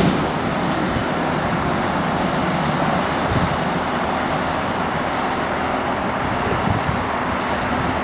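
Baltimore Metro Subway train running away along the surface track, giving a steady running noise mixed with road traffic noise.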